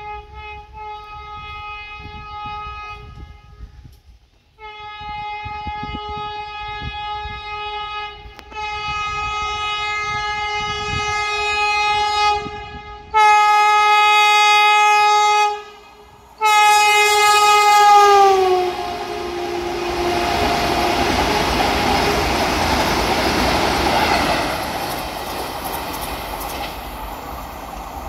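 Vande Bharat Express trainset sounding its horn in a series of long, steady blasts that grow louder as it approaches, the last blast dropping in pitch as the train passes. Then the rushing rumble of its coaches running by at speed.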